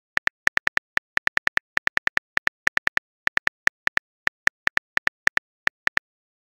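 Smartphone keyboard key-click sound effect from a texting-story app: a rapid, uneven run of short clicks, about five a second with a few brief pauses, as a message is typed out.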